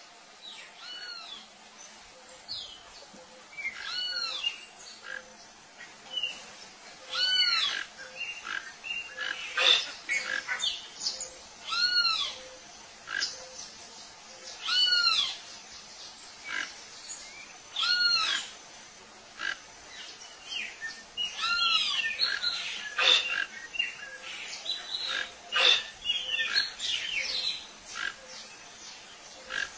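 Several birds calling. One short call that rises and falls comes again about every three to four seconds, among many scattered shorter chirps.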